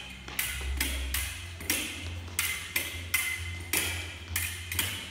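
Fencing blades striking each other again and again: about ten sharp, ringing metal clinks at an irregular pace, roughly two a second, as the blades beat and engage.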